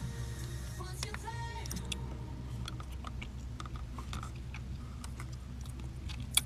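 Eating sounds: small scattered clicks and taps of a plastic spoon against a small plastic cup, with a sharp click near the end, over a steady low hum. A brief pitched tone sounds about a second in.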